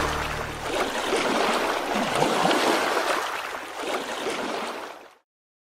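The last sustained tones of the intro music die away within the first second. A rushing noise with no tune follows, then cuts off suddenly about five seconds in.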